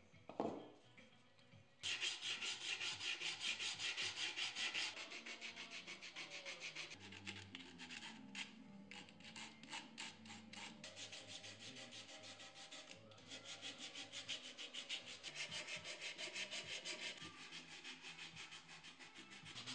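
Sandpaper rubbed by hand over a walnut wood carving in rapid back-and-forth strokes, starting about two seconds in, after a short knock at the very start.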